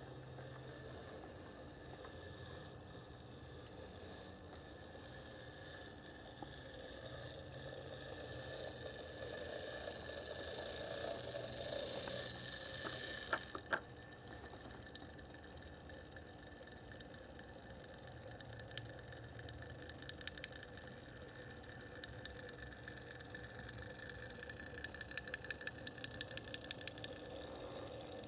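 HO-scale brass Bowser 4-8-2 model steam locomotive running on track: a steady running hiss that grows louder until it cuts off about halfway through, then regular ticks that come faster and faster.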